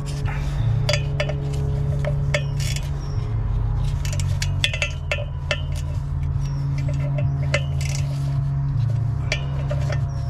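Irregular metallic clinks and taps of a socket wrench and bolts being worked around a clutch pressure plate, over a steady low hum.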